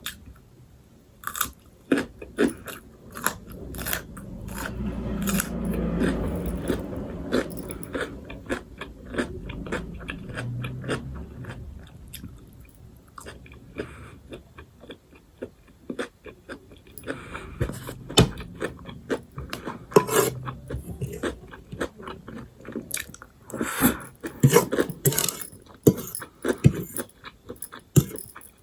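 A person eating close to the microphone: chewing with crunchy bites and many sharp mouth clicks. From about four seconds in, a low rumble rises and lasts several seconds.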